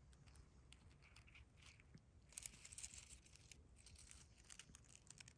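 Faint crackling rustles from a hand handling a mushroom among dry leaf litter, thickest about halfway through.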